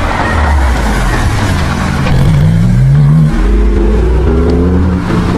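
Sports cars accelerating past; one engine revs up hard, drops in pitch at a gear change about three seconds in, then revs up again.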